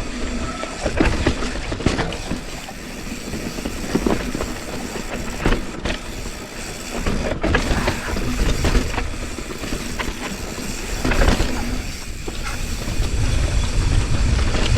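Mountain bike riding fast down a rocky trail: wind rushing over the microphone, with tyres grinding over dirt and rock and the bike rattling in many short knocks over the bumps.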